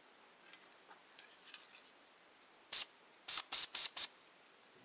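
Krylon aerosol spray paint can sprayed in five short bursts, one and then a quick run of four about half a second later, each a brief hiss. A few faint light ticks come before them.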